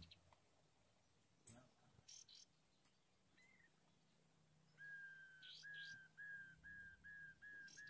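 A few faint clicks, then, from about five seconds in, a short whistled call repeated evenly about two and a half times a second, each note dipping slightly in pitch, with a few fainter higher chirps over it.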